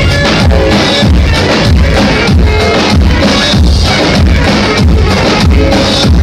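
Live Turkish folk dance music: a clarinet playing a melody over two davul bass drums struck with mallets in a steady, loud beat.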